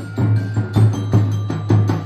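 Percussion music for a festival street dance: drums with struck, ringing pitched percussion, beating a steady rhythm of about three to four strikes a second.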